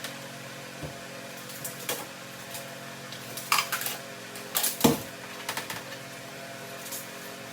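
Steady hum of an electric fan with scattered clicks, knocks and scrapes from handling tools and turf sheets, the loudest cluster about three and a half to five seconds in.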